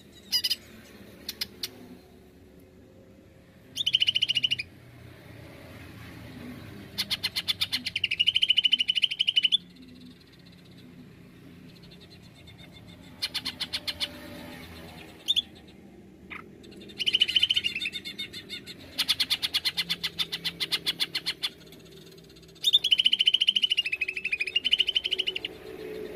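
Caged male cucak ijo (green leafbird) singing in loud bursts every few seconds: fast rattling trills and ringing, wavering whistled notes. This is the hard 'nembak' song that is played as a lure to get other cucak ijo singing.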